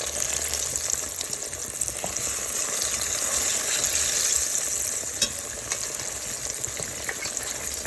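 Ripe plantain slices sizzling steadily in hot vegetable oil in a stainless steel pan, with scattered small pops and one sharp click about five seconds in.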